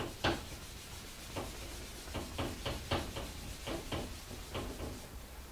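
Dry-erase whiteboard eraser rubbing across a whiteboard, a quick series of about a dozen short back-and-forth wiping strokes.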